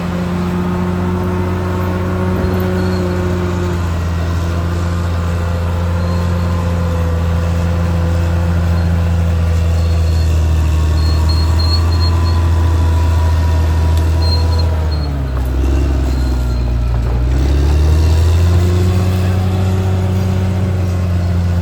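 Caterpillar D6R XL bulldozer's diesel engine running steadily at working revs. About two-thirds of the way through, the engine note drops and wavers for a few seconds, then comes back up to its steady pitch.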